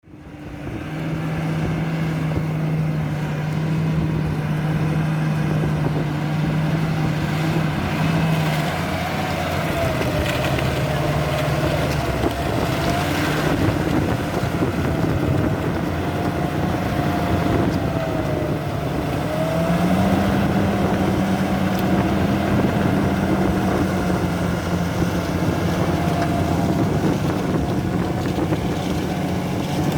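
Large farm tractor's diesel engine running steadily, its pitch stepping up a little about two-thirds of the way through, with a wavering higher whine over it.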